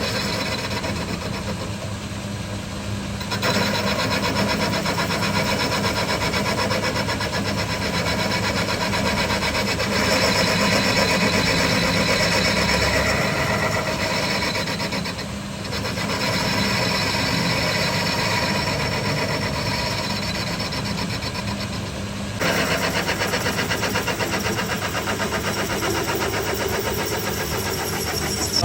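A motor-driven machine running steadily, its sound changing abruptly a few times.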